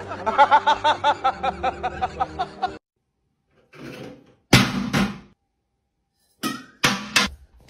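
A rapid run of short pitched notes for the first three seconds. Then plastic toiletry bottles knocked off a tiled bathroom shelf by a cat clatter down: one loud clatter about four and a half seconds in, and two more in quick succession near the end.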